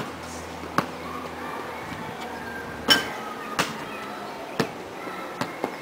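A basketball bouncing and striking a portable hoop: about seven sharp knocks at uneven spacing, the loudest about three seconds in and two close together near the end.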